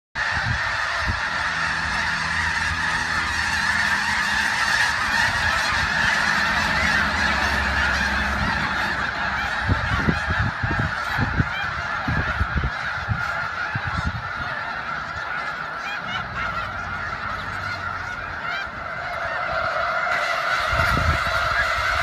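A huge flock of snow geese calling all at once: a dense, unbroken din of many overlapping honks, with a few low thumps around the middle.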